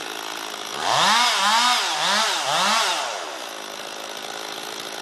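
Two-stroke chainsaw idling, revved four times in quick succession about a second in, then dropping back to idle.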